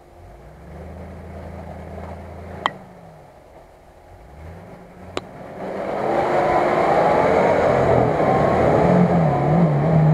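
Nissan Patrol's engine revving under load as it climbs a muddy slope, growing much louder about six seconds in, with the revs rising and falling near the end. Two sharp knocks are heard earlier.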